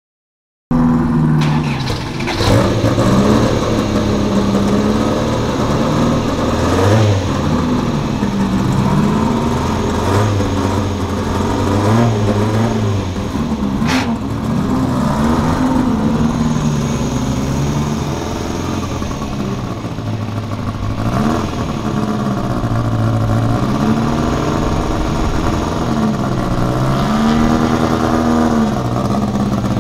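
Toyota Starlet KP61 race car's engine running at a fast idle, its revs rising and falling over and over as the throttle is blipped. Near the end the car pulls away. A sharp click comes about halfway through.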